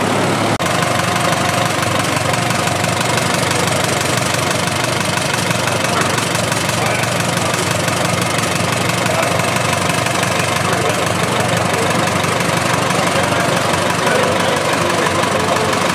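1943 Allis-Chalmers Model U tractor's four-cylinder engine running steadily at an even, unchanging speed.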